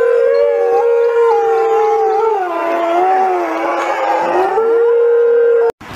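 Two wolves howling together, their long wavering howls overlapping at different pitches, one sliding lower while the other holds higher; the sound cuts off abruptly near the end.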